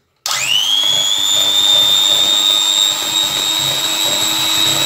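Electric hand mixer switched on a moment in, its motor whine rising quickly in pitch and then running steady as the beaters whisk eggs in a bowl.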